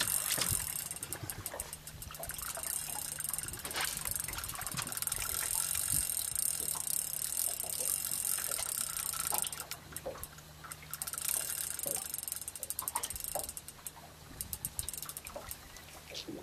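Spinning reel under the load of a heavy cod, clicking rapidly in stretches with short pauses, over a steady low hum.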